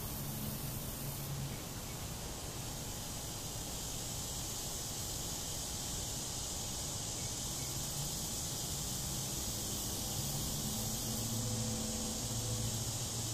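Steady outdoor hiss with a high insect drone, and low fly buzzing that comes and goes several times over a carcass swarming with blow flies and maggots.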